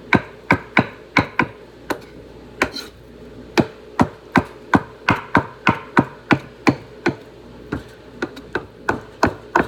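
Kitchen knife chopping food on a cutting board, steady strokes about three a second, with a short pause about two seconds in.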